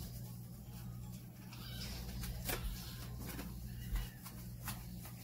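Hands rubbing shampoo lather into a wet dog's coat and paws, soft wet rubbing with a few small clicks and a light knock, over a steady low hum.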